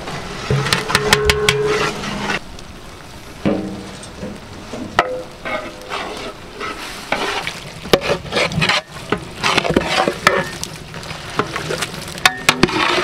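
A long metal ladle stirring and scraping through a large aluminium pot of frying onion-tomato masala, with repeated metal clicks over a steady sizzle.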